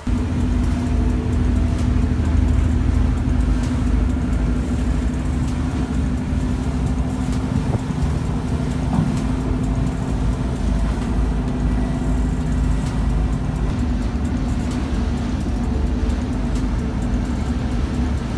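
Diesel engines of an 85-foot party fishing boat droning steadily underway, a constant hum over a low, uneven rumble.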